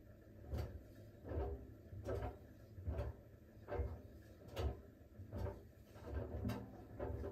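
Siemens WG56 iQ700 front-loading washing machine drum turning during its steam programme, the laundry tumbling and dropping with a soft knock a little more than once a second over a low motor hum.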